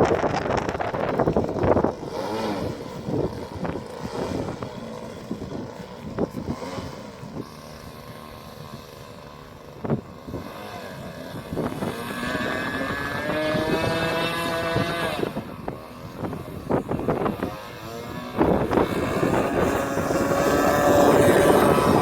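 Radio-controlled model aircraft's motor and propeller whining, with wind buffeting the microphone. A wavering whine comes in about halfway through and returns louder near the end.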